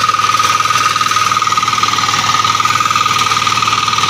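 Walk-behind reaper's small engine running steadily under load as the machine cuts soybean, with a steady high whine over the rapid engine beat.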